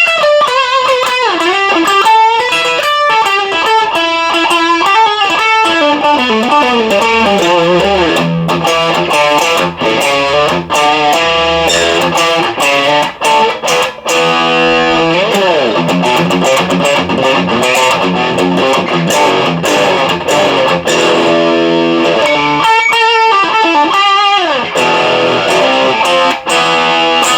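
ESP M-3 electric guitar played through a Marshall DSL1 amp: lead playing with string bends and vibrato and quick runs of notes. The playing stops abruptly at the end.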